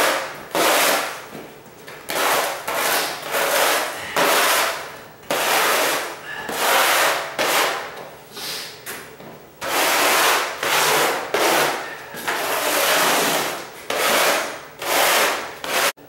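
Repeated scraping strokes of a loose floor tile pushed across a gritty bare subfloor to gather up debris, over a dozen strokes each half a second to a second and a half long.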